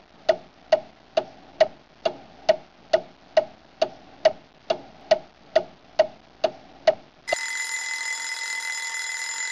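A clock ticking evenly, a little over two ticks a second. About seven seconds in, the ticking stops and an alarm starts ringing with a steady, unbroken tone.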